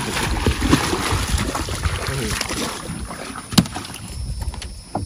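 Wind buffeting the microphone over splashing water beside the boat, with one sharp knock about three and a half seconds in; the noise drops away in the last second or so.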